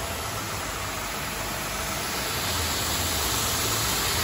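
Rolyspray R168E-30 HTP sprayer running steadily: a 2 HP electric motor turning a V-belt-driven three-piston pump, with a low hum under the hiss of its high-pressure water jet. The hiss grows a little louder about halfway through.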